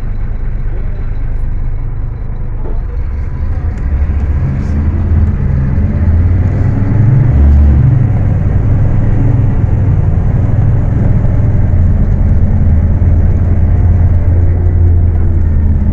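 Scania K310UA bus's rear-mounted diesel engine running under load. It grows louder about four seconds in as the bus accelerates, then holds a steady drone.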